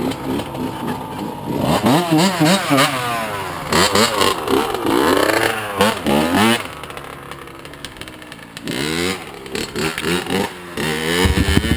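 85cc two-stroke dirt bike engine revving up and down repeatedly as it is ridden, with a quieter lull in the middle. Near the end a louder, lower engine note comes in close by.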